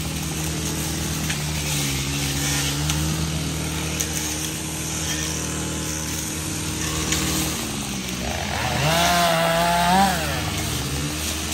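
Chainsaw engine running steadily, then revved up about eight and a half seconds in and held high for a second or two before dropping back.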